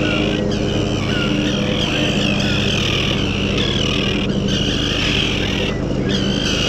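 A colony of common terns calling over and over in a dense, harsh chorus of high calls. A steady low engine hum runs underneath.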